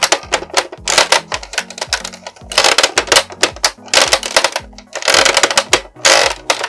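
Background music with a bass line, over dense rapid clicking and clattering.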